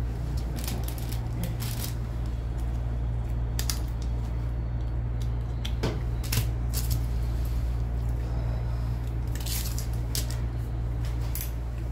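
Gloved hands handling a paper dressing packet and a drape: scattered short crinkles, rustles and small clicks over a steady low hum.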